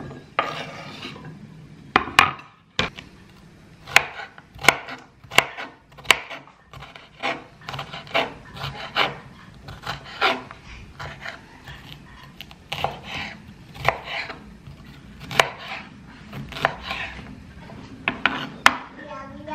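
A kitchen knife chopping red bell pepper on a wooden cutting board: sharp, irregular knocks of the blade on the board, roughly one or two a second, with some scraping of the blade across the wood between them.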